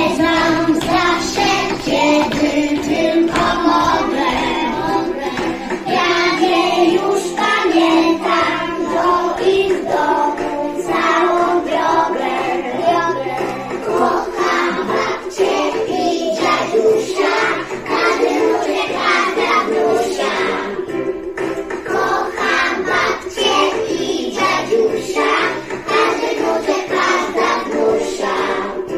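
A group of young children singing a song together over backing music.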